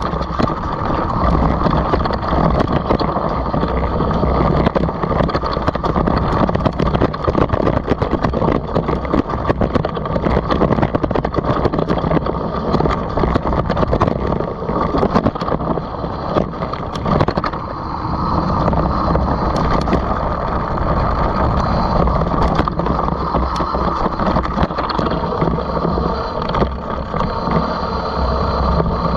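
Mountain bike riding fast down a dirt trail: knobby tyres rolling over dirt and leaves in a steady rough rumble, with the bike's frame and chain rattling in many small clicks and knocks.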